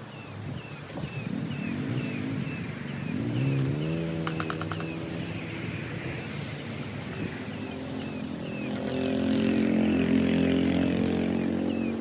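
A motor vehicle engine runs and rises in pitch about three seconds in, then holds, growing loudest near the end. Through it, a high chirp repeats about twice a second.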